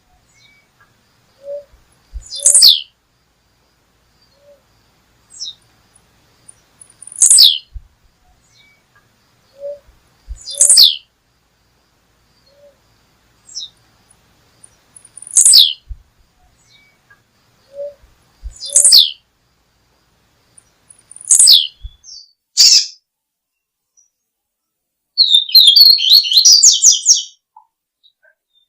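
A songbird giving a sharp, high call that sweeps downward, repeated every two to three seconds. Near the end it breaks into a rapid chattering run of notes lasting about two seconds.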